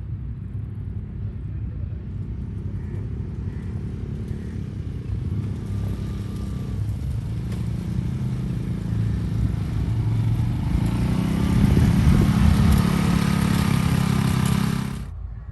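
Polaris ATV engine running while the quad is ridden, growing louder about two-thirds of the way through, then cutting off suddenly near the end.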